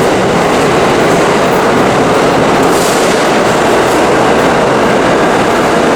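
New York City subway train running through the station, a loud, steady rumble of wheels on rails with a brief high hiss about halfway through.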